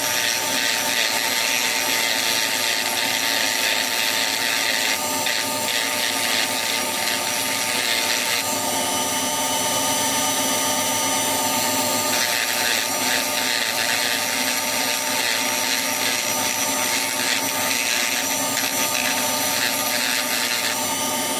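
Hand-held rotary tool running steadily with a high whine, its small abrasive disc grinding and shaving the end of a small turned wooden top hat. The grinding noise changes in texture several times while the motor's whine holds steady.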